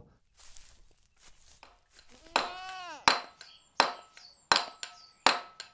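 Hand carving in stone: a mallet striking a steel chisel, four sharp blows about three-quarters of a second apart, starting about three seconds in. Just before the blows comes a short tone that falls in pitch.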